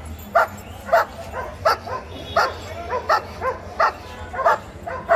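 Long-coated German Shepherd barking over and over in an even rhythm, about three barks every two seconds.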